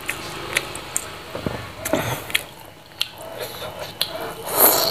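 Close-up eating sounds: chewing fried tofu, with wet mouth clicks and lip smacks, then a louder bite near the end as another mouthful goes in.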